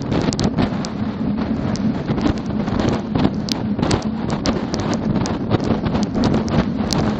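Wind buffeting a microphone riding on top of a haul truck carried on a trailer at highway speed: a dense rushing noise full of short crackles and pops, over a steady low drone.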